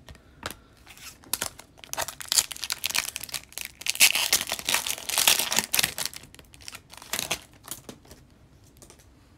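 A foil trading-card pack wrapper (2020-21 O-Pee-Chee Platinum hockey) being torn open and crinkled by hand: a run of crackles, loudest about midway, dying away near the end.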